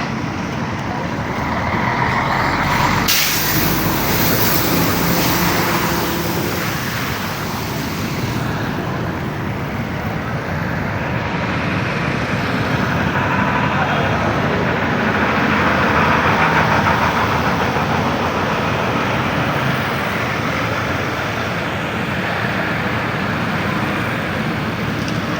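Road traffic noise: vehicles passing, swelling and fading, with a sharp hiss about three seconds in and voices in the background.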